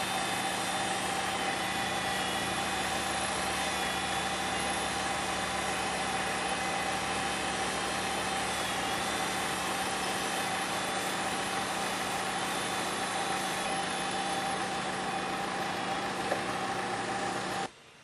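Engine of a yellow earthmoving machine moving a manufactured home section, running steadily at one constant pitch with no revving. The sound cuts off abruptly near the end.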